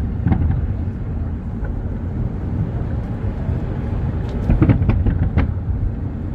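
Scattered firework bangs and pops, with a cluster of several sharp pops about four to five seconds in, over a steady low rumble.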